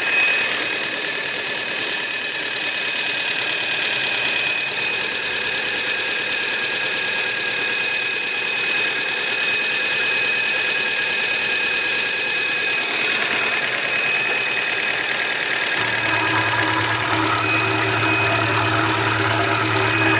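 A 2002 Mazda 626 squealing steadily and high-pitched, a noise whose cause the owner has not yet traced. A low hum joins in late on.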